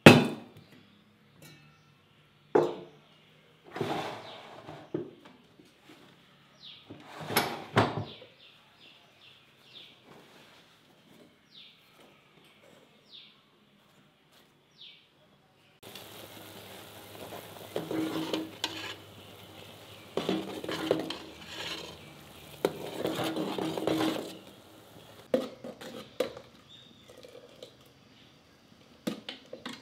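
Pots and utensils being handled: a few knocks and clinks as a pot and bowl are set down on a wooden table, then a metal spoon clattering and scraping in an aluminium pot while stirring. A low steady hiss runs under the second half.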